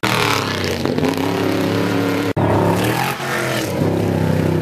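Off-road race vehicle engine running at high revs, its pitch falling away and then climbing and dropping again before holding steady. There is a brief dropout about two seconds in.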